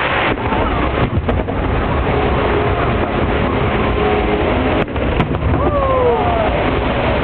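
Aerial fireworks display: a continuous rumble of booming and crackling shell bursts over crowd voices.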